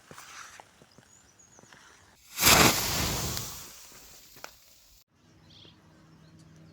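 A sudden loud whoosh of something igniting, about two seconds in, fading away over the next two seconds, with scattered small crackles before it.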